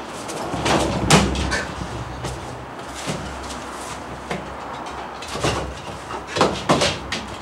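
Thumps and scuffling of a man and large dogs grappling on a wooden deck. The loudest thud comes about a second in as he goes down onto the boards, and more knocks follow between five and seven seconds in.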